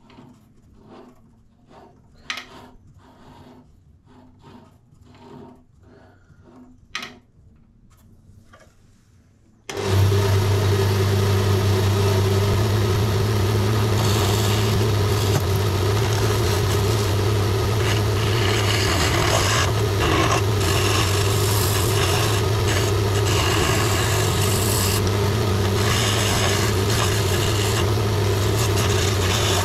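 Faint clicks and rubs of hands and a steel skew chisel on a wood blank and tool rest, then about ten seconds in a benchtop wood lathe switches on suddenly and runs with a loud steady motor hum. Over it comes the hiss of the skew chisel cutting the spinning blank, swelling and fading as the tool moves along.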